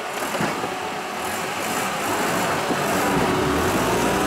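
A UAZ off-road vehicle's engine pulling under load as it crawls through a muddy rut close past the microphone. It grows louder toward the end as it draws alongside.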